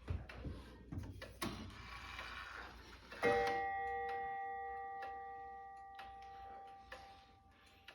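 Six-bell chiming mechanism of a 1906 Gilbert grandfather clock: clicks and a brief whir of the gear train, then one loud bell stroke about three seconds in, ringing and slowly dying away.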